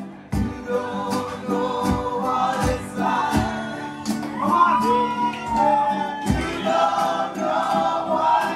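Background music: a song with singing voices over a steady drum beat.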